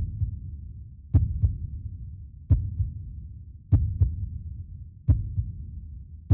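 A slow, evenly paced heartbeat: a double thump, strong then weaker, about every one and a quarter seconds, over a low rumble.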